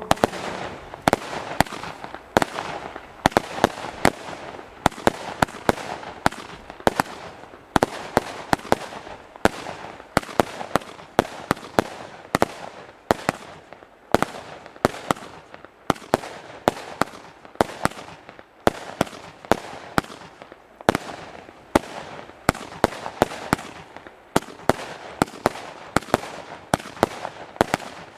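50-shot fan-pattern firework battery (Heron Fireworks PSP 3-1A) firing shot after shot, sharp launch reports about two a second with a steady noisy hiss between them.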